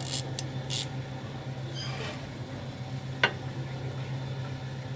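Hand tools working on a sway bar end link: a few short metallic scrapes in the first second, then a single sharp clink about three seconds in, over a steady low hum.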